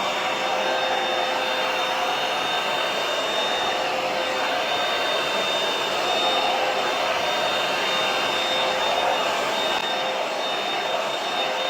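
Handheld hair dryer running steadily, a constant rush of air with a faint steady whine.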